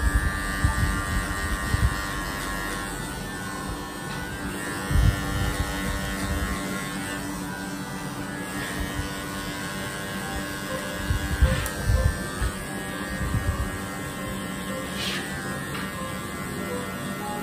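A cordless electric hair clipper buzzing steadily as it cuts the short back and sides of a man's hair. A few low bumps of handling come and go, the loudest about five and eleven seconds in.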